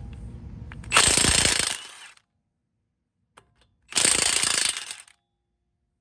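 Milwaukee FUEL cordless impact wrench hammering in two bursts of just under a second each, about three seconds apart, breaking loose lug nuts with a 21 mm socket.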